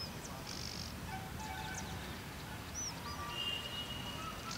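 Birds chirping and whistling in short, scattered calls, with a few brief buzzing trills, over a steady low outdoor rumble.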